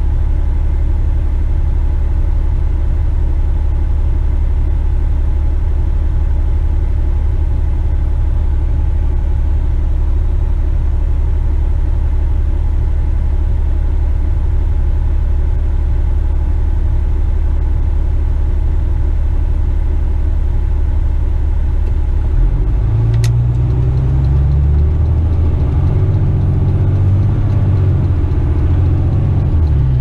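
Western Star dump truck's diesel engine idling steadily, heard from inside the cab, then revving up as the loaded truck pulls away about three-quarters of the way through. A single sharp click comes just after the engine picks up.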